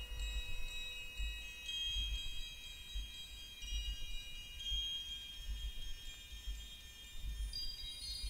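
Ambient electronic music playing from a vinyl record: high, chime-like tones held and overlapping above a soft low pulse that repeats a little faster than once a second.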